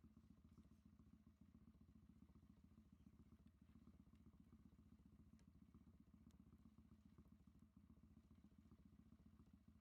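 Near silence, with a faint steady low rumble and a few faint ticks.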